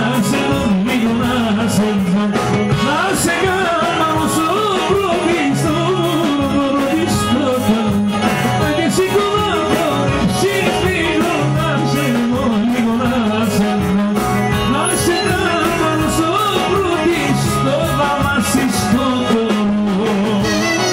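Live Greek folk dance music from an amplified band: a male voice sings a wavering, ornamented melody over a steady bass line and drum kit with regular cymbal strokes.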